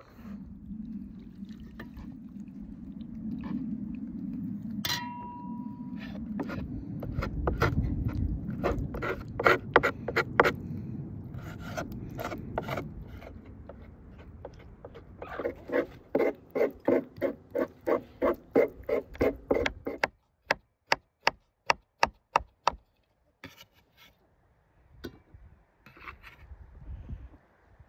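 Hands pulling apart boiled meat on a wooden cutting board, with scraping and rubbing. Then a knife chops on the wooden board in a steady rhythm of about four strokes a second; the strokes turn into sharp, clean chops about two-thirds of the way through.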